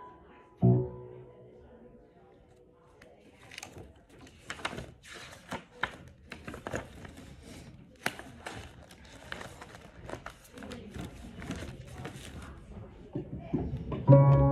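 Paper sheet music rustling and pages being turned on a piano's music rack, in many short crackles. A piano chord sounds briefly about a second in, and piano playing starts again near the end.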